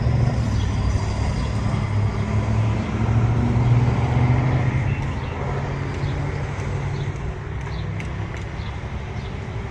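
A car running, with a steady low engine hum and road noise, easing off somewhat after about five seconds.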